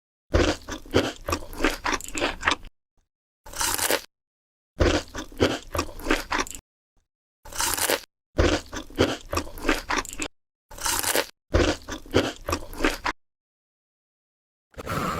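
Close-up eating sounds: crisp food crunched and chewed in seven bursts of rapid crunching with short pauses between them, then about two seconds of silence near the end.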